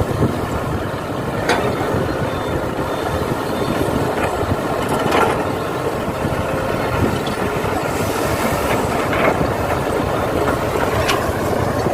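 Radio-controlled model excavators and dump trucks at work: a steady motor and gear whir with scattered short clicks.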